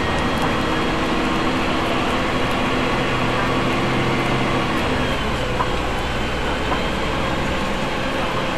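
Three-axle double-decker bus's engine and gearbox running on the move, recorded on board near the gearbox, with a thin, steady high gearbox whine over the engine. The engine note changes about five seconds in.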